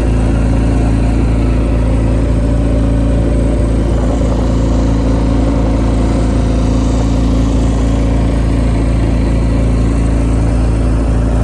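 Boat engine running steadily with the boat under way, an even, unchanging engine note with no change in speed.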